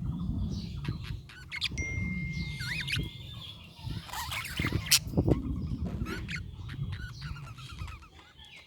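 Budgerigars chirping and warbling in quick, irregular twitters with short rising and falling notes, including one held whistle about two seconds in, over a steady low rumble and a sharp click about halfway through.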